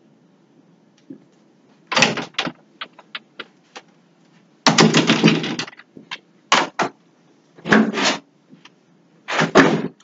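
Handling noises: a run of short rustling, clattering bursts as objects are moved and set down, the longest about five seconds in.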